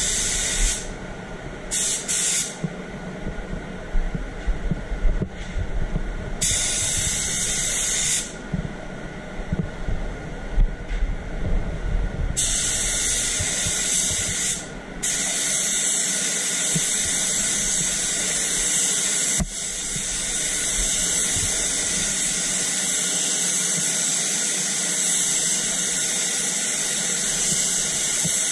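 Gravity-feed spray gun hissing as it sprays white direct-gloss topcoat onto a bumper. It comes in short trigger bursts at first and runs as one long continuous pass through the second half. Under it runs the steady hum of the spray booth's air flow.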